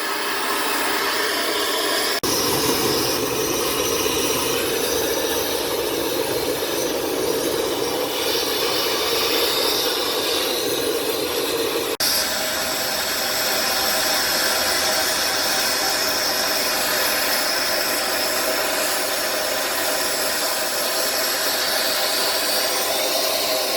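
Electric heat gun blowing steadily, heating a rubber differential-mount bushing to soften and melt it so it can be pushed out. The sound changes abruptly twice, about 2 seconds in and about 12 seconds in.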